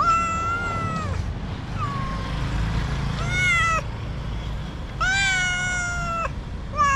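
A domestic cat meowing repeatedly at close range, several drawn-out meows of about a second each, typical of a stray cat asking for food.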